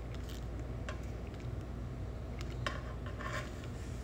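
A wide brush loaded with melted encaustic wax scraping against a metal pan and stroking across a wax-coated board: four short brushing scrapes, the longest just over three seconds in, over a steady low hum.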